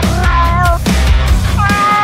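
Heavy rock music with a steady drum beat, with a cat yowling over it: a short yowl just after the start and a longer, slightly falling one near the end.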